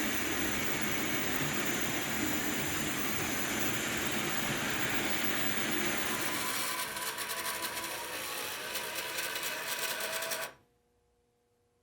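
COX HO-scale electric model train running on its track: a steady small-motor whir with rattling wheels, turning rougher with rapid fine ticking in the second half, then stopping abruptly about ten and a half seconds in.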